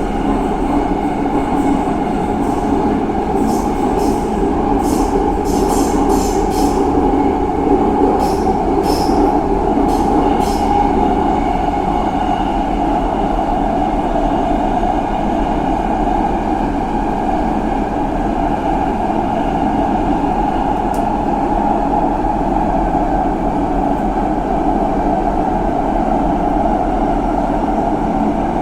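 Subway train running: a steady, loud rumble, with a run of sharp clicks in the first third.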